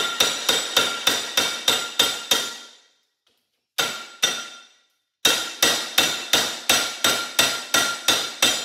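Hammer blows on an angle grinder's housing clamped in a bench vise, meant to crack the case open. The blows come fast, about three to four a second, each with a metallic ring. Near the middle they stop briefly, with two lone strikes, then start again at the same pace.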